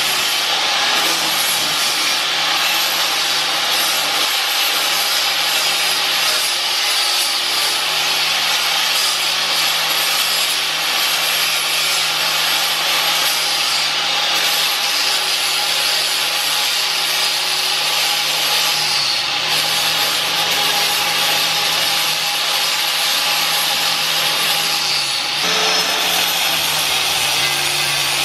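Electric grinder running continuously, grinding rust off a steel van frame rail to leave a flat mounting surface. Its motor pitch dips briefly twice, near the 19 and 25 second marks, as it is pressed against the metal.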